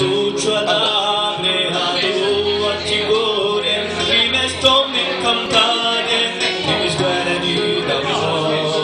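A male voice singing a Corsican song into a microphone, accompanied by an acoustic guitar.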